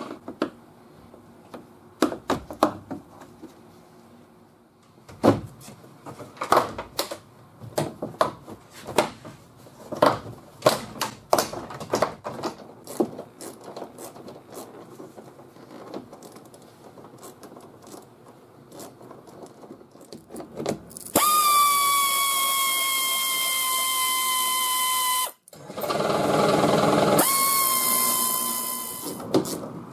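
Scattered clicks and knocks of plastic trim fasteners being worked loose with a screwdriver. Then a 1/4-inch stubby air ratchet runs twice, for about four seconds and then about three, a loud whine that sinks slightly in pitch as it turns out a bolt.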